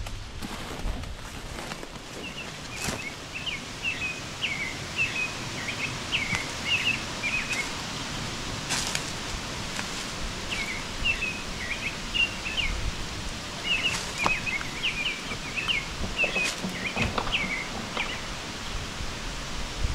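A songbird singing runs of quick chirps in several phrases over a steady outdoor hiss, with a few sharp clicks.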